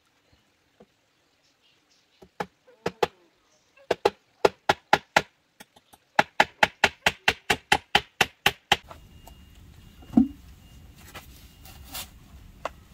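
A knife chopping food on a cutting board: a few scattered strokes, then quick runs of regular chops, about five a second, that stop abruptly about nine seconds in. A low steady background follows, with a single knock.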